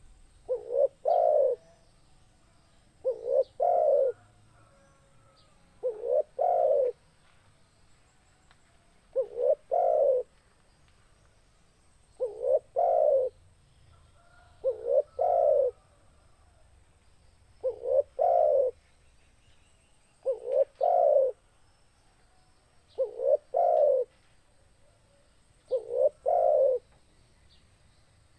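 Spotted dove (tekukur) cooing in full song: a phrase of a couple of short coos running into a longer coo, repeated steadily about every three seconds.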